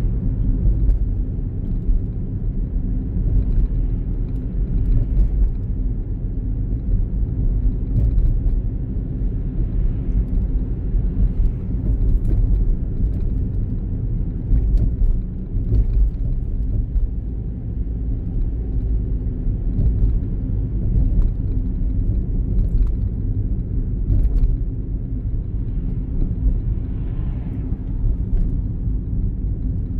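Low, steady road and engine rumble heard inside a moving car's cabin.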